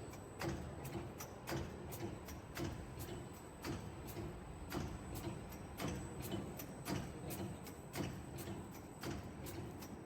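Fabric pleating machine running, its mechanism clicking in a steady rhythm of several strokes a second over a low running hum.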